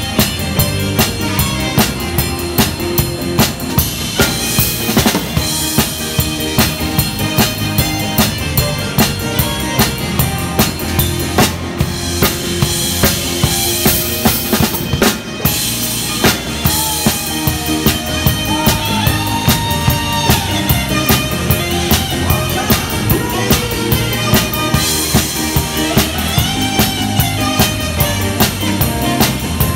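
Live band playing an up-tempo rock number, the drum kit loudest: steady kick drum and snare backbeat with rimshots and cymbals, guitar and melody lines behind.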